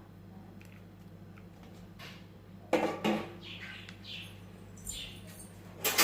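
A spoon knocking and scraping against a bowl as chopped vegetables are tipped into noodles: two sharp clinks about three seconds in, a third near the end, and a few lighter scrapes between, over a steady low hum.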